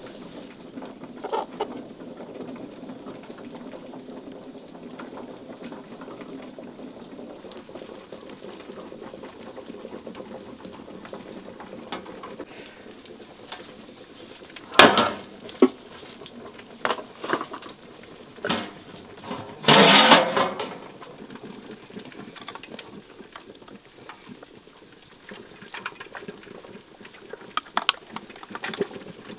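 Knocks and clatter of flat stone weights and an aluminium lid being set on a large cooking pot, a string of sharp knocks with the loudest and longest clatter about two-thirds of the way through, over a steady low background noise.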